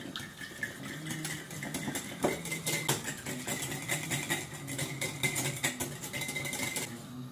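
Wire whisk beating egg and milk in a glass bowl, its wires clicking and scraping against the glass many times over a steady low hum.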